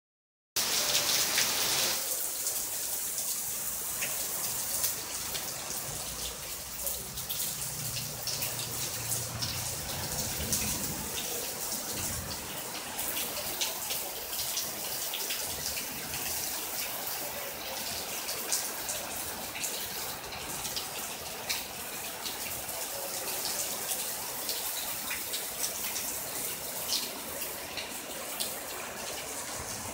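Heavy rain falling steadily, an even hiss with many sharp drop hits, and a low rumble for a few seconds in the middle.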